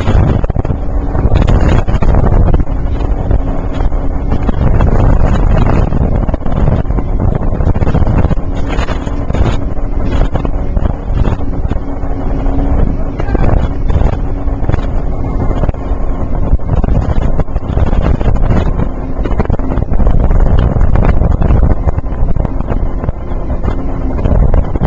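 Speedboat running flat out, its engine a steady drone under heavy wind buffeting on the microphone.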